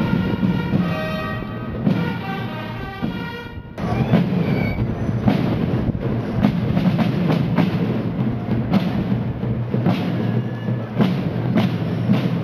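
Fanfare corps playing: valveless fanfare trumpets sound held notes together, then after an abrupt cut about four seconds in, marching drums beat steady strokes at about two a second.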